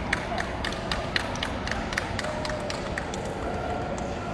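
Irregular sharp taps, a few a second, over the steady background noise of a large indoor hall; the taps thin out about three seconds in.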